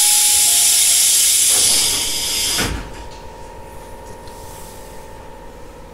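A long blast of compressed air hissing from the Tobu 850-type railcar's pneumatic equipment. It cuts off a little under three seconds in with a low thud, leaving a quieter steady hum.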